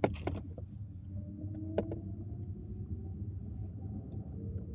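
Car running at driving speed, heard from inside the cabin: a steady low road-and-engine rumble with the engine note slowly rising as the car speeds up. A few sharp clicks come near the start and one about two seconds in.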